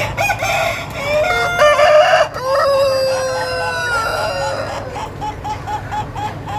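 A rooster crowing: a crow of stepped notes, then a long held note that slowly falls in pitch, followed in the last couple of seconds by a run of short repeated clucks at about four a second. A steady low hum lies underneath.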